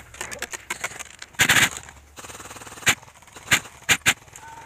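Airsoft guns firing. A patter of quick faint shots is followed by a short loud rattle and then several sharp single shots in the second half.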